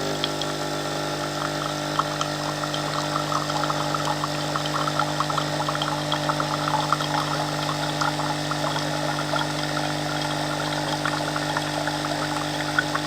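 Nescafe Dolce Gusto Oblo capsule coffee machine's water pump running with a steady hum while hot water crackles and trickles out into a mug, flushing fresh water through to rinse out the vinegar used for descaling.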